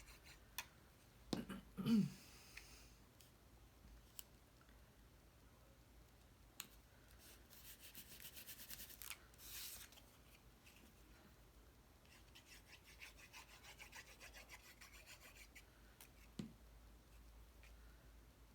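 Cardstock being handled and folded by hand, with faint rubbing and scraping along the creases and a few light taps and knocks on the work surface.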